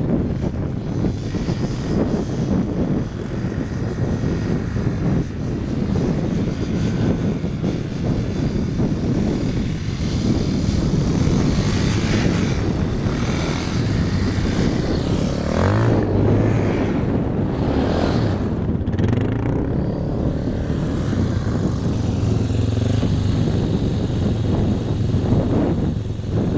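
ATV (four-wheeler) engines running and revving as the quads spin their wheels in snow on ice; the engine pitch rises and falls repeatedly in the second half.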